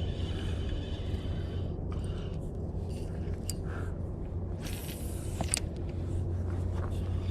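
Small crankbait cast on a spinning rod: light scrapes and ticks of handling the reel, then a brief hissing rush of line paying off the spool about five seconds in, ending in a sharp click. A steady low rumble underlies it all.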